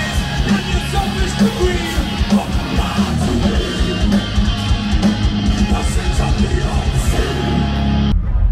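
Live band playing loud, heavy electric-guitar music with vocals through a festival PA, heard from within the crowd. It cuts off abruptly just before the end.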